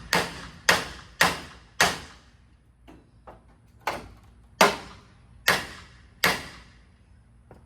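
A series of sharp, loud knocks or bangs, each ringing out briefly. Four come in quick succession, then after a short gap with a couple of faint taps, four more follow.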